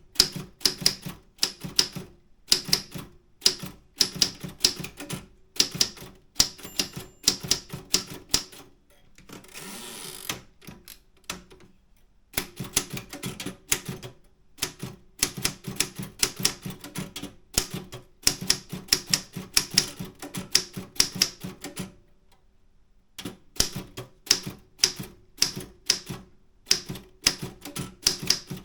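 Optima M10 manual typewriter being typed on at a steady pace, each key striking with a sharp clack. The keystrokes stop twice: once for a short rushing noise about ten seconds in, and once for about a second of quiet a little past twenty seconds.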